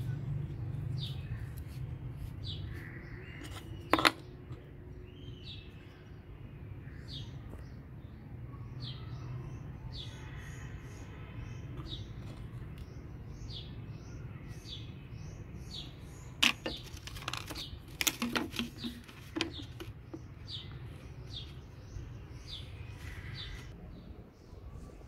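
Rigid PVC pipes and fittings knocking and clacking as they are handled and pushed together: one sharp knock about four seconds in and a cluster of clacks past the middle. Birds chirp in short repeated notes over a steady low hum.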